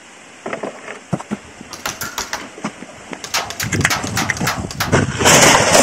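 Clicks and rattles of an HFC HG-203 gas airsoft M11-style submachine gun replica being handled, its plastic and metal parts knocking and snapping together, coming faster as it goes on. Near the end there is a louder, noisy swish.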